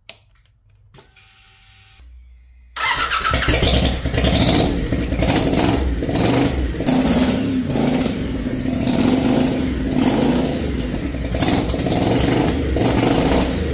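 A click and a short, thin whine as the ignition comes on, then the twin-turbocharged Triumph Bonneville Bobber's 1200cc parallel-twin cranks and starts about three seconds in. It keeps running loudly through unfinished open dump pipes, its sound swelling and dipping about once a second.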